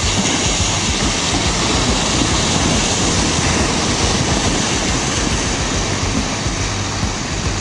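Heavy tractor unit's diesel engine running under load as it pulls a loaded gravel dump semi-trailer over loose ground, a loud, steady noise.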